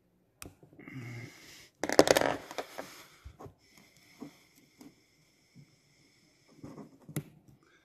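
Small metal clicks and scraping as a wire circlip is worked around in the piston-pin bore of a chainsaw piston with a pick. A loud breathy noise about two seconds in is the loudest sound, and a faint high whistle-like tone holds from about three to seven seconds in.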